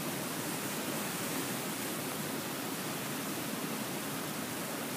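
Flash-flood runoff rushing down a shallow channel across a dry lakebed, a steady, even hiss of churning water.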